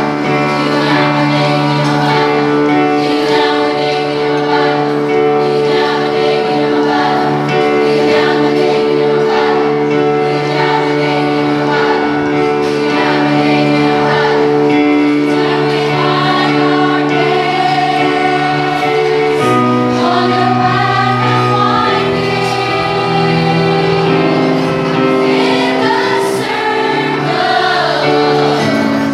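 A large women's choir singing a sacred song, over held keyboard chords with a low bass; the harmony shifts to new chords about two-thirds of the way through.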